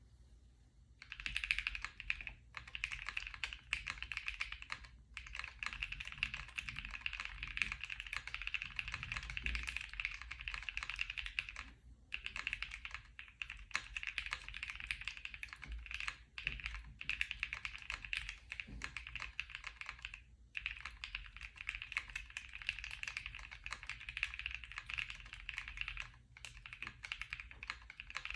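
Continuous typing on a plateless Glacier80 custom mechanical keyboard with lubed NovelKeys x Kailh Cream linear switches, PE foam and CRP R4 keycaps: a dense stream of keystrokes starting about a second in, with brief pauses every few seconds.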